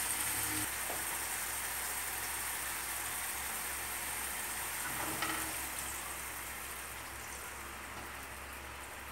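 Chopped onion and garlic sizzling in oil and soy sauce in a wok, a steady hiss. About five seconds in there is a small knock as a cup of water goes in, and the sizzle then gradually dies down.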